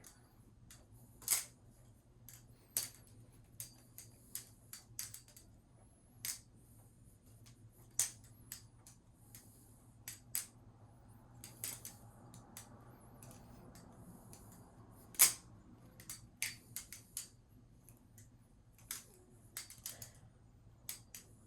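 Balisong (butterfly knife) being flipped freestyle: its handles and blade clicking and clacking together at irregular intervals, with one sharper clack about fifteen seconds in.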